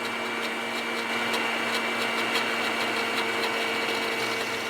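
Blender motor running at a steady speed while melted butter is drizzled in to emulsify a hollandaise sauce.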